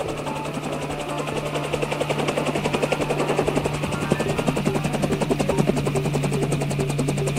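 Helicopter rotor blades chopping rapidly, growing louder over the first few seconds as the helicopter arrives.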